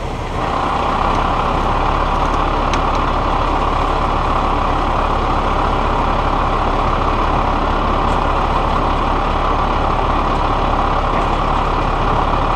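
Heavy tow truck's diesel engine running at raised speed, stepping up in loudness about half a second in and then holding steady, as it powers the hydraulic winches and boom uprighting a rolled dump truck.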